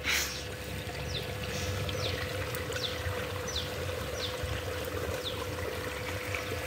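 Water running steadily from a garden hose into a flat plastic lay-flat pipe, a continuous gushing sound. Short, high chirps that fall in pitch repeat over it about once a second.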